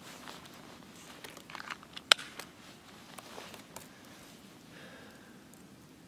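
Winter jacket fabric rustling with small handling clicks, and one sharp click about two seconds in.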